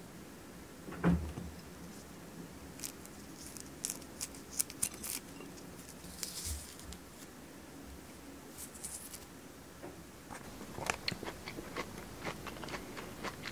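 A clementine being peeled and pulled apart by hand: scattered small crackles and tearing of the peel, with a denser run of crackles near the end as the segments are separated. A low thump about a second in.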